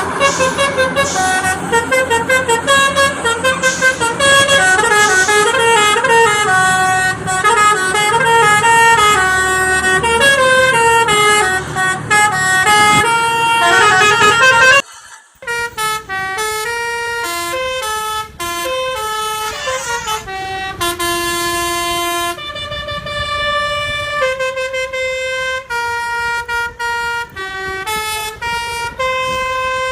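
Multi-tone 'telolet' truck air horn playing a stepping melody of loud horn notes, over road and engine noise in the first half. About halfway through the sound breaks off for a moment, then the horn melody resumes more cleanly with little background noise.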